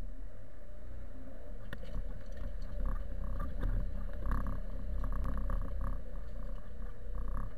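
Zetor tractor's diesel engine running steadily with a low rumble while pulling a field cultivator through worked soil. Intermittent metallic rattling comes and goes over the engine from about two seconds in.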